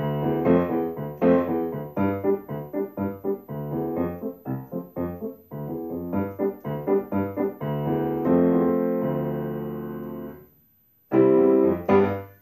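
Solo piano playing short, detached chords in a bouncy rhythm, then a long held chord that fades away. After a brief silence the piece ends on two loud, short chords.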